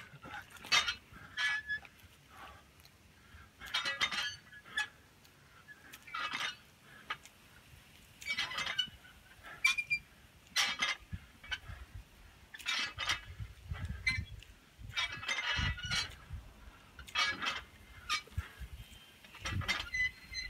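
A man's hard, forceful breathing during barbell thrusters: a short, heavy exhale about every two seconds, in time with each rep.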